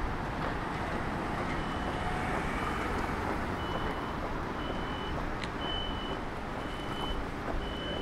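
Vehicle reversing alarm beeping, a short high single tone repeating about once a second, starting about a second and a half in, over steady street noise.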